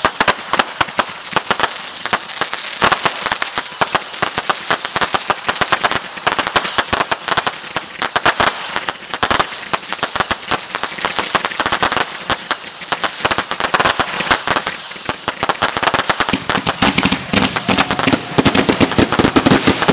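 Fireworks firing in rapid succession, a continual string of short whistles, each falling in pitch, over dense crackling pops.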